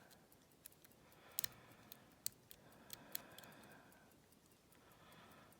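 Faint, irregular small clicks of a hook pick working the pin tumblers of a Scandinavian oval lock cylinder under light tension, as pins are lifted to find sets.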